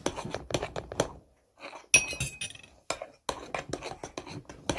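A utensil clinking and scraping against a bowl as slime mixture is stirred after borax has been added, in irregular clicks with a short pause about a second in.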